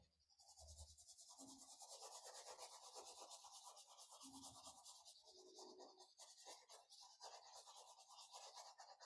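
Faint scratching of a drawing tool on a piece of paper, scribbling in many quick back-and-forth strokes.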